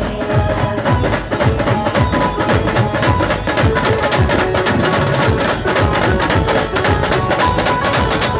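Loud amplified band music from a truck-mounted loudspeaker stack: fast, heavy drum beats under a held melody line.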